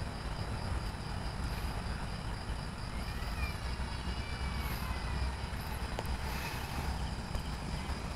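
Steady low rumble of a Boeing 787-8 Dreamliner's Rolls-Royce Trent 1000 jet engines as it flies overhead. A faint high chirp pulses evenly, about three times a second.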